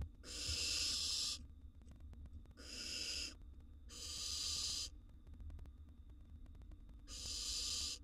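Barn owl nestlings giving four drawn-out rasping hisses, each about a second long, the 'snoring' food-begging call of barn owl chicks, over a low steady hum.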